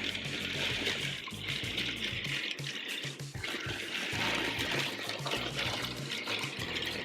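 Background music with a steady bass line, with a hissing, rustling noise over it that fades and returns a few times.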